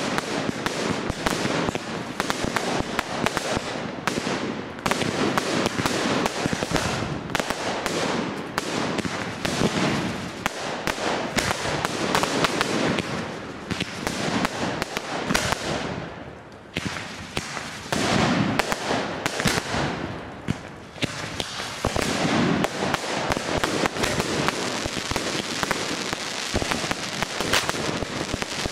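Fireworks display: a dense, continuous barrage of bangs and crackling bursts, easing off briefly twice past the middle before building again.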